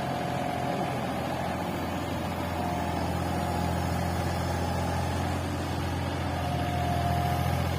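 Heavy diesel engine running steadily with a low drone, while a thin higher whine comes and goes three times.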